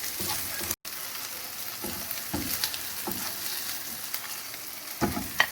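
Diced chicken breast and onion sizzling in oil in a frying pan, with a utensil scraping and stirring the pan a few times. The sizzle cuts out completely for an instant about a second in.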